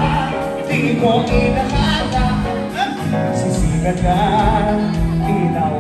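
Live band playing a song at full volume: a singer over electric guitar and a steady drum beat.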